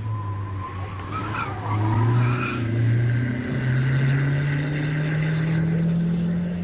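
Slalom car's engine under load with tyres squealing through a turn in the first couple of seconds, then the engine pitch rising steadily as the car accelerates.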